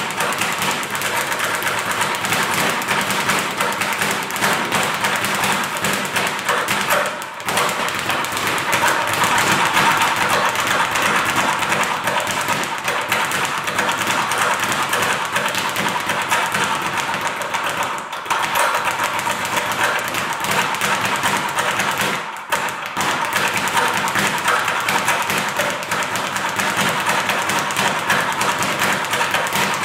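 Leather speed bag punched in a fast continuous rhythm, rebounding off a round wooden platform in a rapid rattle of thuds. The rhythm breaks off briefly three times: about a quarter of the way in, again past the middle, and a little later.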